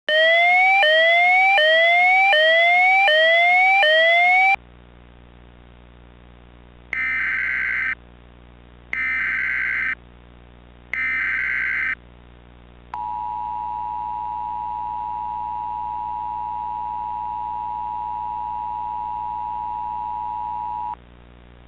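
Emergency Alert System broadcast tones. A loud rising whooping tone repeats six times, then three one-second bursts of warbling SAME header data, then the steady two-tone EAS attention signal sounds for about eight seconds, all over a low electrical hum.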